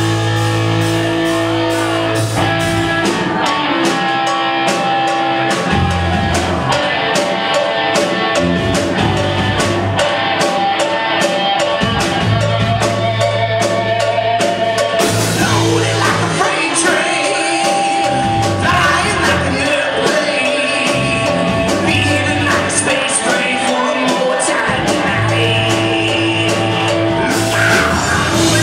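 Live rock band playing: electric guitar over a drum kit.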